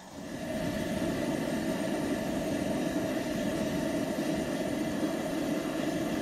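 Coleman Dual Fuel liquid-fuel camp stove burner running with a steady rushing hiss. It comes up over about half a second as the valve is worked. The burner is just lit and still warming up from a yellow flare toward a clean blue flame.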